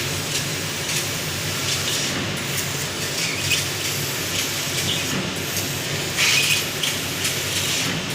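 CNC laser cutting machine running: a steady rushing hiss over a low hum, with a louder burst of hiss about six seconds in.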